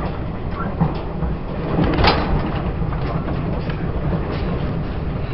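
Running noise of a Taiwan Railways E1000 push-pull Tze-Chiang express train in motion: a steady low rumble of wheels on rail with scattered light clicks. A brief louder rush comes about two seconds in.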